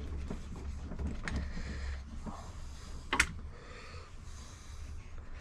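Wood lathe tailstock being worked by hand: metal parts sliding and clicking, with one sharp click about three seconds in, over a steady low hum. The tailstock is still tight after cleaning and dry lube.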